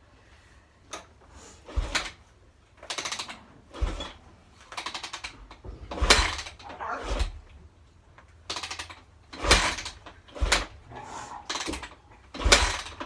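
Yamaha YZ250F 250cc four-stroke single being kicked over again and again, about once a second. Each kick turns the engine over briefly with a thump, and it never catches and runs: the bike won't start.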